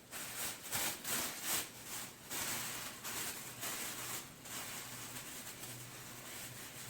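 Packaging rustling and crinkling in short irregular bursts as masks are handled and packed, dying down after about four seconds, over a faint low hum.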